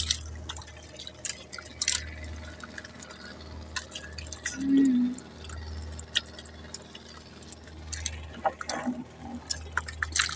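Sea water lapping and dripping at the side of a small outrigger boat, with many scattered small drips and ticks as fish and line come up out of the water. A brief low hum sounds about halfway through.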